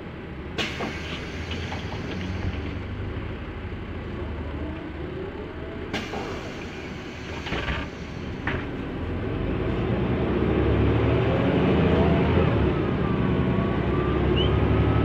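Mercedes-Benz O 405N2 city bus running, with a few sharp clicks and hisses in the first half. From about nine seconds in the engine pulls harder and grows louder, with whines gliding up and down as the bus gathers speed.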